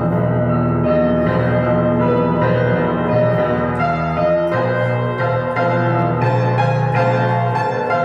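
Keyboard music in a piano-like voice: sustained chords over a held bass, with notes struck more often in the second half.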